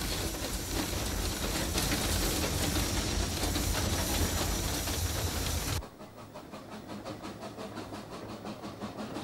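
Narrow-gauge steam train running, heard from on board as a steady, loud rumble of wheels and running gear. About six seconds in it cuts abruptly to a quieter, even, quick beat of the locomotive's exhaust puffing.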